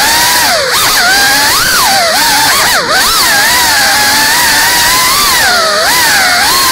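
Small FPV quadcopter's electric motors and propellers whining. The pitch swoops up and down as the throttle changes through its rolls, and the sound dips briefly about three seconds in.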